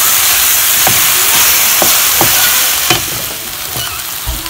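Chopped red onion, garlic and ginger sizzling in hot oil in a stainless steel pan, stirred with a spatula that knocks and scrapes against the pan a few times. The sizzle gets a little quieter about three seconds in.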